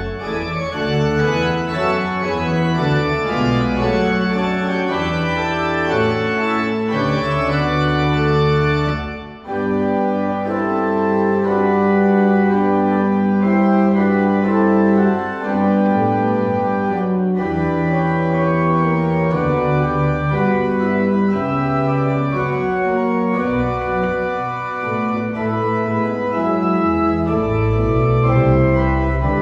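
Organ playing a postlude of sustained, slowly changing chords, with a brief break about nine seconds in.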